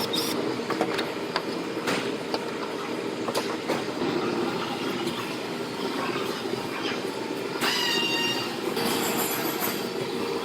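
Hand work on a pickup's bed panel in a body shop: scattered clicks, knocks and rustles over a steady shop hum, with a brief squeal about eight seconds in, as the tail light is taken out and the panel is masked off for primer.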